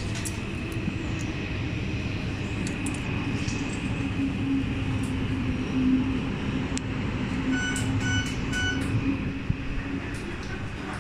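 Metro train running with a steady rumble and a low motor hum. About eight seconds in there is a quick run of four short beeps.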